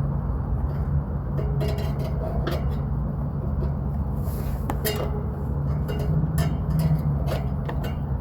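Small metal clicks and clinks of hand tools and parts being handled on an air-conditioner condenser unit during fan motor work, coming irregularly several times a second at the busiest moments. Under them runs a steady low hum.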